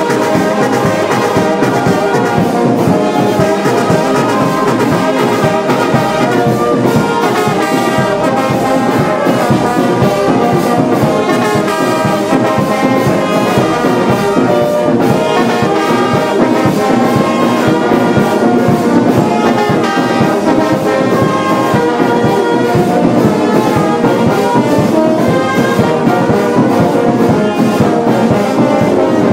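Brass music playing continuously, with a steady beat under it.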